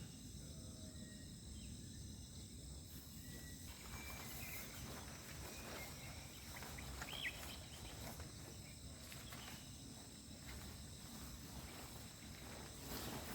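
Night-time chorus of crickets and other insects, a faint steady high-pitched trill, with a few short faint chirps over low background noise.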